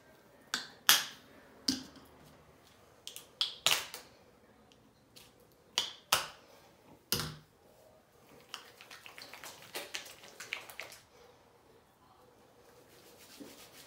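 Plastic shampoo bottle squeezed, spluttering out thick colour-depositing shampoo in several sharp squirts over the first seven seconds. Then quieter, rapid wet squelching as the shampoo is worked through wet hair.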